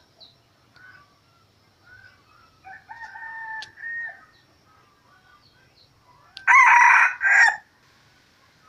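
Rooster crowing: a medium-loud crow about three seconds in, then a loud, short two-part crow about six and a half seconds in. Small birds chirp faintly in between.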